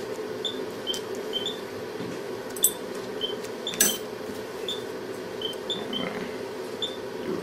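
Short high beeps about twice a second from a surgical patient monitor, slightly uneven in spacing and shifting a little in pitch, over a steady low hum. There are a couple of faint clicks in the middle.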